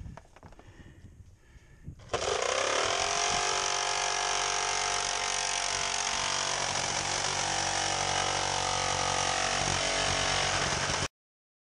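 Corded DeWalt jigsaw with a wood blade starting up about two seconds in, its motor pitch rising, then running steadily as it cuts through 19-gauge metal roofing and the OSB beneath. It cuts off suddenly near the end. A few faint knocks are heard before it starts.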